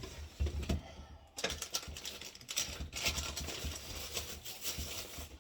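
Rummaging through a packed refrigerator drawer: plastic cheese bags crinkling and items clicking and knocking together, with a few low knocks in the first second and a denser rustle from about a second and a half in.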